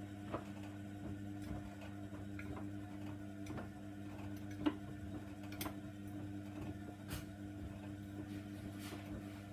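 Hoover Nextra washer dryer's drum motor running with a steady hum as the drum turns the wash. Scattered light clicks and knocks come from the load inside the drum.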